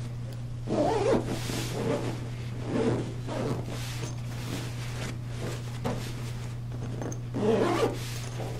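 Fabric of a pet bed's bolster cover being handled and rustled in four short bursts, over a steady low hum.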